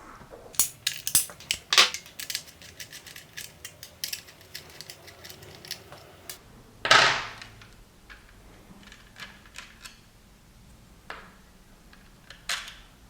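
Hand tools and plastic parts being handled while the mounts are taken off a motorcycle taillight assembly: scattered small clicks and taps, quicker in the first few seconds, with one louder clatter about seven seconds in.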